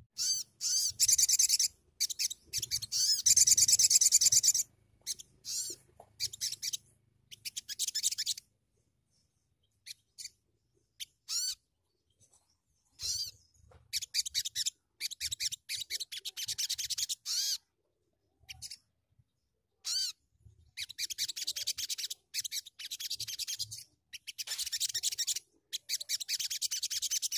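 Olive-backed sunbird (sogon) singing: repeated bursts of fast, high-pitched twittering trills, each a second or two long, with a sparser stretch of scattered single notes around the middle.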